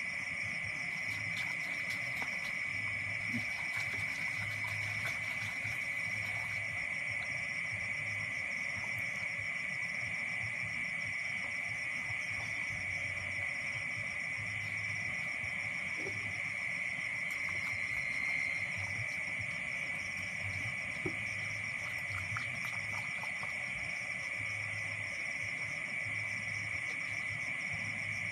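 Steady high-pitched chorus of insects, with a slow low pulsing underneath, repeating about once a second.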